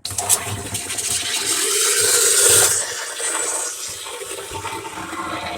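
Steamer hissing as steam is blown into the refrigerator's clogged defrost drain to clear it; the hiss starts suddenly, grows loudest about two seconds in, then eases a little and carries on.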